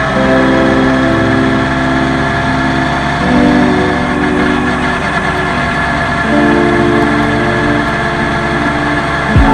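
Background music of held, chord-like notes that change every second or two, over a steady rushing noise.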